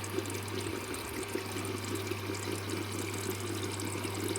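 Water running steadily, rinsing the washing machine's detergent drawer, with a low steady hum underneath.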